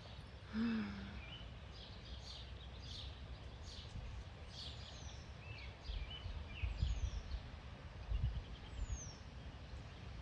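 Several wild birds chirping and calling outdoors, with a few high, thin whistles that fall in pitch. There is a short low-pitched note about half a second in, and uneven low rumbles in the second half.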